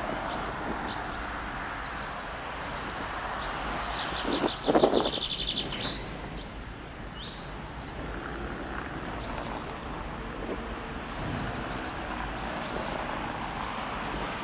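Small birds chirping and calling over a steady background rush. About four and a half seconds in there is a louder rattling trill lasting a second or so.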